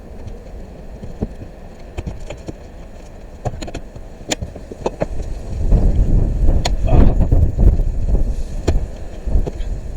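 Wind buffeting the microphone, a low rumble that swells strongly for a few seconds past the middle, with scattered sharp knocks and clicks.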